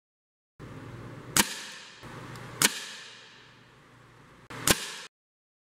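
Three .177 air rifle shots, each a single sharp crack with a short decay, as pellets are fired at a paper target.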